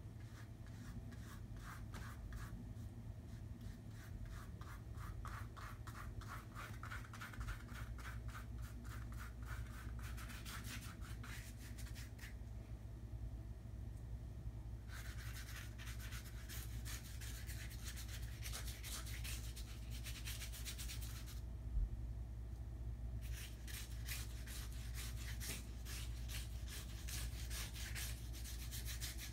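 Paintbrush scrubbing acrylic paint onto canvas in quick back-and-forth strokes, in three spells with short pauses between. A steady low hum runs underneath, and there is a single knock about two-thirds of the way in.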